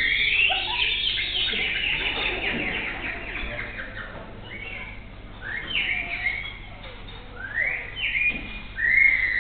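A performer imitating birdsong with the mouth, convincing enough to pass for real birds. A dense run of quick chirps and trills thins into scattered rising whistles, with a loud held whistle near the end.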